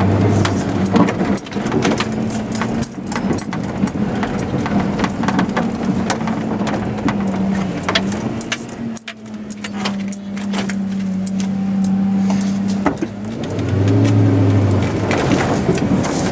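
1995 Ford pickup's engine running on a test drive, heard from inside the cab: a steady engine drone with constant light rattling of cab fittings or keys. The drone drops out sharply about nine seconds in, then returns. The drive tests whether freeing a pinched fuel line has cured the engine's refusal to rev past 2,000 RPM.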